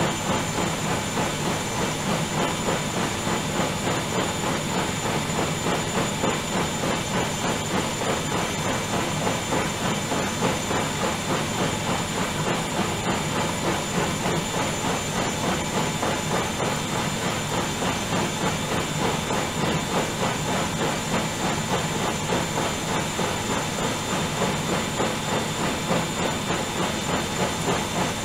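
Bauknecht Dynamic-Sense WAE8575 front-loading washing machine spinning its drum fast in the final spin of a quick 40°C wash set to 1200 rpm: a steady rushing whoosh with a high whine and a quick, even pulse.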